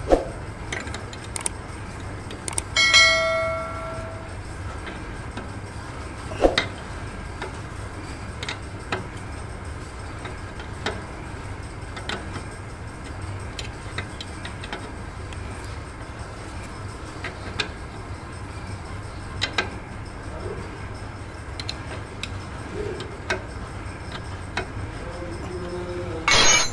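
Metal hand tools clicking and clinking against a brass drain cock and a steel fitting under an air-compressor tank, with one clear metallic ring about three seconds in and a short rushing burst near the end, over a steady low hum.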